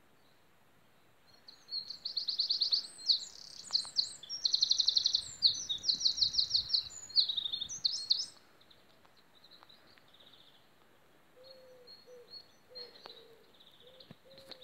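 A songbird singing outdoors in rapid trilled phrases, loud from about a second and a half in until about eight seconds, then fainter high calls. A short lower note repeats several times near the end.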